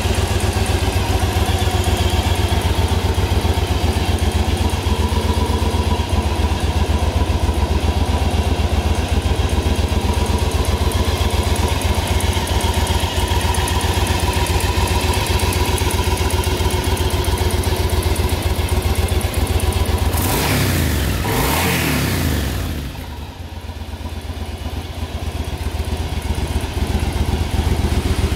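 Yamaha BT1100 Bulldog's air-cooled 1063 cc V-twin engine idling steadily through its twin exhausts, revved once briefly about twenty seconds in, then settling back to idle.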